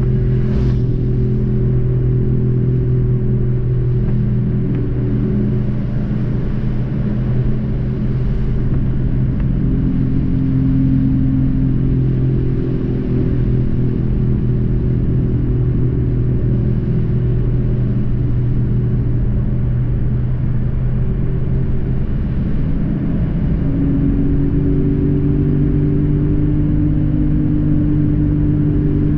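Car engine and road noise heard from inside the cabin: a steady low drone whose pitch shifts a few times as the car changes speed. A brief windscreen-wiper swish comes near the start and again about eight seconds in.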